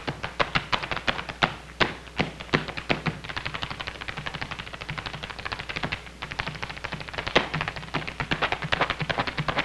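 Tap dancing: a fast run of tap-shoe clicks and heel stamps, several a second, with one especially loud strike about seven seconds in.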